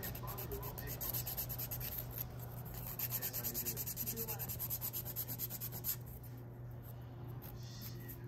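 Hand nail file rasping across a set acrylic fingernail in quick back-and-forth strokes, filing the hardened acrylic down to shape. The strokes ease off about six seconds in and pick up again near the end.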